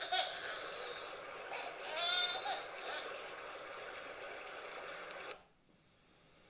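Recorded baby crying played through a smartphone speaker: a wailing cry about two seconds in over a steady hiss. About five seconds in there are two clicks and the playback cuts off, leaving a faint hiss that slowly grows louder.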